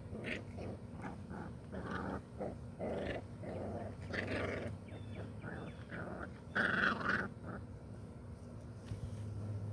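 A litter of puppies about four to five weeks old play-fighting, giving short growls and puppy cries in quick irregular succession, the loudest burst about seven seconds in.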